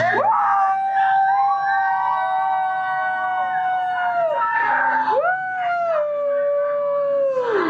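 Voices holding a long, high note for about four seconds, then a second long note from about five seconds in that slides down in pitch at the end.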